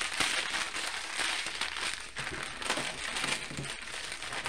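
Plastic bags crinkling and rustling as hands handle and shift small bags of rhinestone drills and keychain parts.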